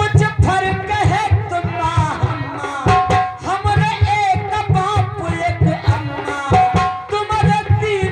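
Devotional kirtan music: a voice sings a melody over a steady tabla drum beat.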